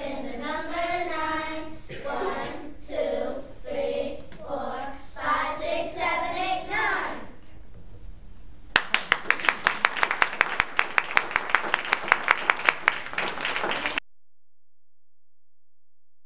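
Children's choir singing the last phrases of a song, ending about seven seconds in; a moment later the audience claps for about five seconds, then the sound cuts off suddenly.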